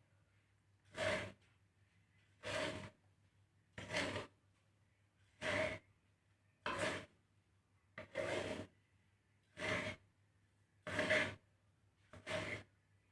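A spatula stirring a millet-based seed mix as it is dry-roasted in a pan: a rasping swish of shifting grains about every second and a half, nine strokes in all.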